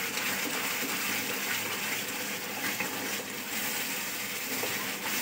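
Steady hiss of a thick fig paste cooking in a nonstick pan on a gas stove while it is stirred with a silicone spatula.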